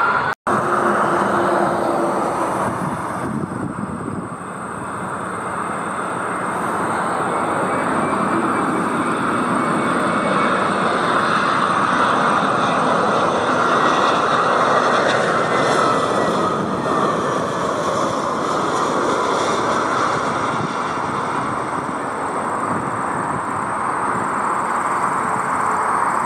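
Narrow-body jet airliner's turbofan engines running steadily and loud as the jet passes, with a faint gliding whine above the rush and a slight swell midway. The sound cuts out sharply for an instant just under half a second in.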